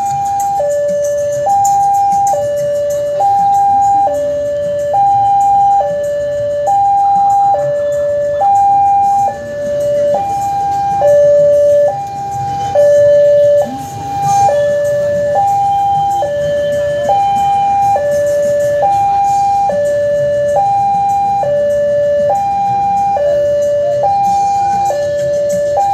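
Railway level-crossing warning alarm sounding with the barrier down, the signal that a train is approaching. It is a steady two-tone electronic signal, alternating between a high and a low note, each held just under a second, over a low background rumble.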